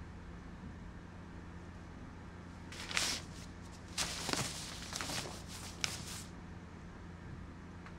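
Clothing rustling as a school shirt is untucked and handled: a brush of cloth about three seconds in, then a longer run of rustles with a small sharp click, over a steady low hum.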